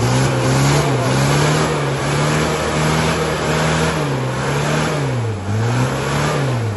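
Toyota Land Cruiser 70-series engine revving up and down repeatedly under load as it spins its wheels climbing a steep, muddy slope, struggling for traction.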